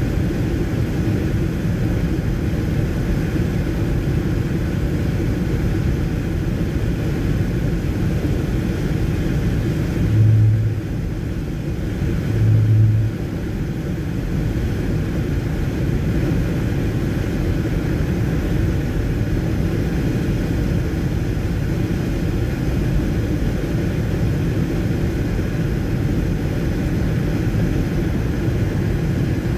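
Steady road and tyre noise from a car driving at highway speed on a wet road, heard from inside the cabin. Two short low buzzes sound about ten and thirteen seconds in.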